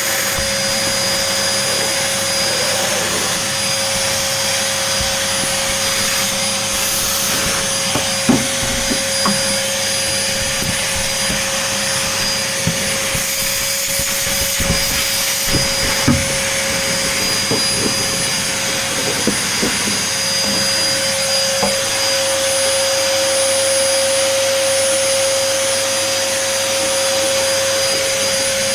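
Vacuum cleaner running steadily as it sucks up spilled flour, with a steady whine in its hiss. A few short knocks come in the middle stretch.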